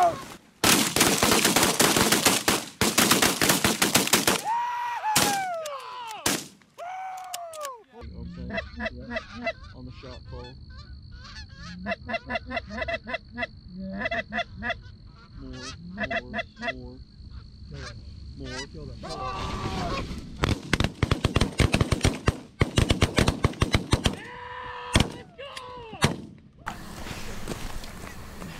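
A rapid volley of many shotguns firing together at a flock of Canada geese, with the geese honking through and after the shots. A second long burst of shotgun fire mixed with honking comes about two-thirds of the way in.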